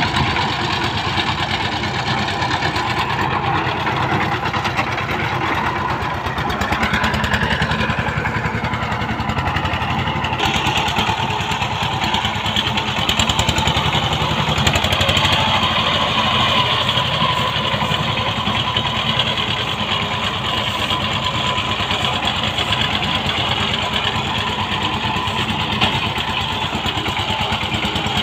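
Two-wheel power tiller's single-cylinder diesel engine running steadily under load, chugging with a fast, even firing beat as the machine drives through the field.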